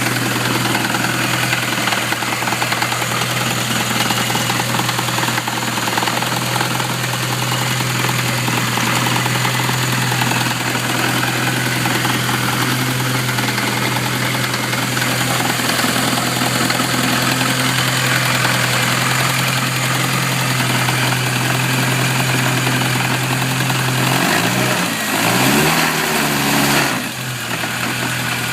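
Classic Mini's supercharged 1275 A-series engine with an Eaton supercharger, idling with a loud knocking. It is revved up briefly about 24 seconds in, then drops back. The owner wonders whether the knock is the supercharger bearing.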